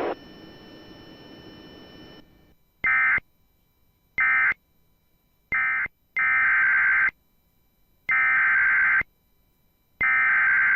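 Emergency Alert System SAME digital data bursts: three short raspy bursts about a second apart, which mark the end of the previous alert, then three longer identical bursts about two seconds apart, the coded header of the next alert. Before them, a faint steady hum from the radio channel.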